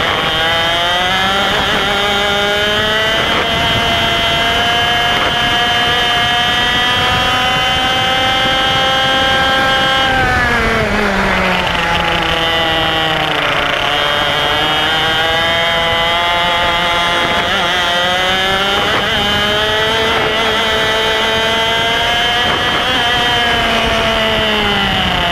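IAME X30 125cc single-cylinder two-stroke kart engine, heard up close at racing speed. Its pitch climbs for the first ten seconds, drops sharply under braking, then climbs again with a brief dip partway through, and falls off again near the end as the driver lifts for the next corner.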